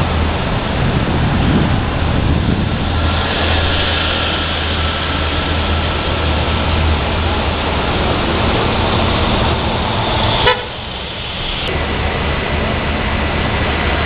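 Street traffic with engines running and a car horn honking. A sharp click comes about ten and a half seconds in, after which it briefly goes quieter.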